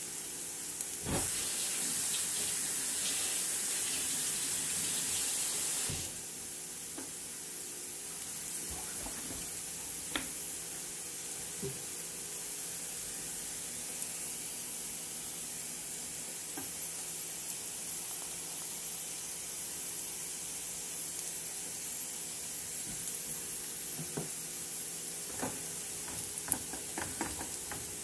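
Diced russet potatoes sizzling in olive oil in a nonstick frying pan: a steady hiss, louder for about the first six seconds, with occasional light pops. Near the end a silicone spatula starts scraping and stirring them.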